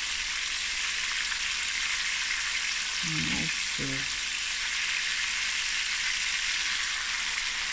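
Masala-coated snoek pieces shallow-frying in hot oil in a stainless steel pan, a steady, even sizzle.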